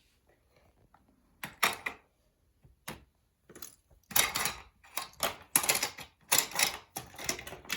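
Plastic toy cars being handled and set down, a run of short clattering rattles that come quicker and thicker in the second half.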